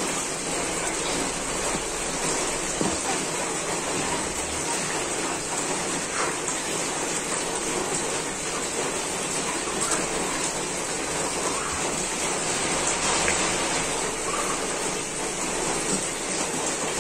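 A steady, even hiss like rain falling, with a few faint clicks.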